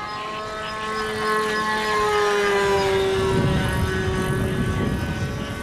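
Radio-controlled model airplane in flight: its engine and propeller make a steady buzzing note that grows louder about a second in and slides down in pitch in the second half. Low rumbling noise joins partway through.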